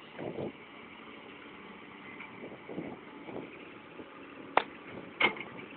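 Distant dump trucks and earthmoving machinery running as a steady low rumble, with a few brief swells and two sharp knocks near the end.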